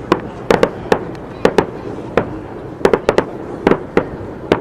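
Aerial fireworks shells bursting in rapid, irregular succession: about a dozen sharp bangs, some in quick pairs, over a continuous low rumble.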